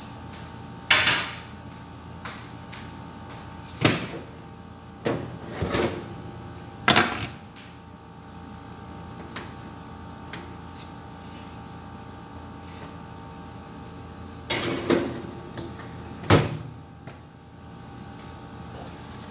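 Kitchen clatter: a series of sharp knocks and bangs, about six in all, from a metal baking tray and cupboard or oven doors being handled, over a steady hum.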